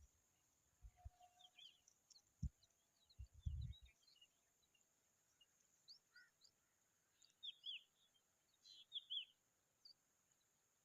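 Faint, short, high bird chirps in scattered clusters, with a quick run of several near the middle and again near the end. A few low thumps in the first four seconds.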